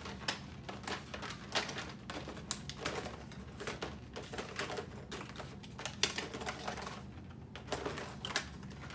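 School supplies in plastic packaging being rummaged through in a clear plastic storage bin: irregular clicks, clatters and crinkles of plastic on plastic, with a brief lull about seven seconds in.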